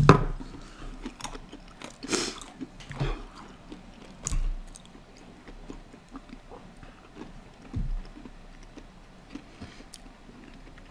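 Peanuts being chewed: irregular soft crunching, with a few louder crunches in the first half and one more about eight seconds in.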